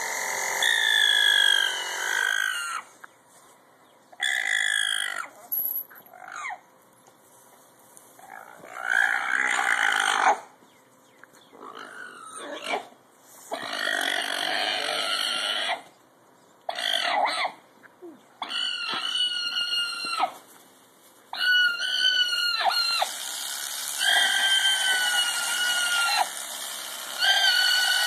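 An alpaca crying out again and again in loud, wavering, high-pitched calls, each a second or two long with brief pauses between. She is protesting at being restrained and laid down for shearing.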